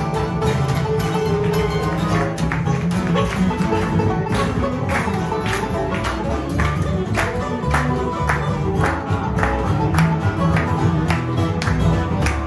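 Live bluegrass string band playing an up-tempo tune on acoustic guitar, fiddle, banjo and upright bass. From about four seconds in, hand claps keep time on the beat, roughly two a second.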